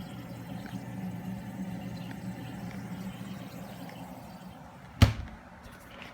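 Coldspot mini-bar fridge's compressor humming steadily. About five seconds in comes a single sharp knock, followed by a few light clicks.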